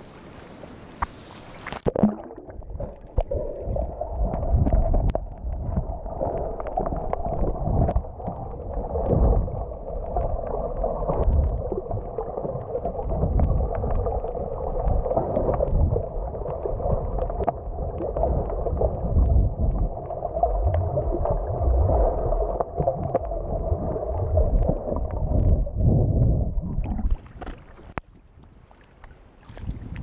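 Seawater heard from a camera held underwater: a muffled, churning rush with irregular low thuds that starts when the camera goes under about two seconds in. Near the end the camera comes back up and the muffling lifts to quieter, brighter lapping of small waves at the surface.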